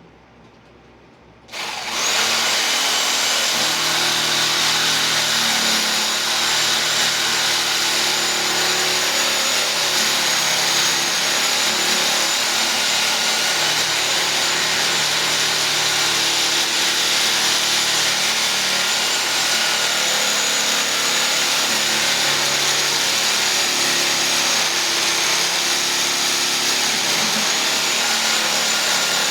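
Sawzall reciprocating saw starting up about a second and a half in and then running steadily, shaving wood off a carving, with a faint high whine over the cutting noise.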